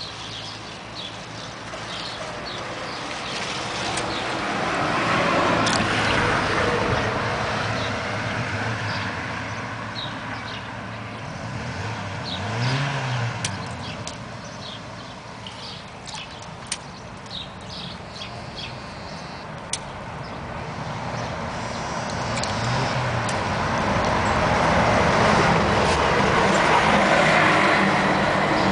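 Passing road traffic: its noise swells and fades, with a louder stretch near the end, and a few scattered light clicks and knocks.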